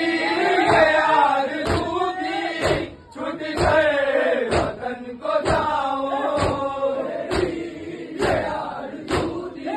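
Men chanting a noha together in a crowd, with hands striking chests in unison in matam, a sharp slap about once a second keeping the beat.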